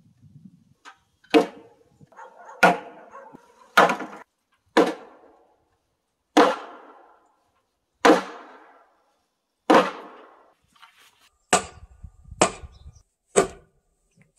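A heavy wooden mallet striking timber, knocking a beam into its joint on top of a post: a series of single blows one to two seconds apart, each ringing briefly, the last few coming faster.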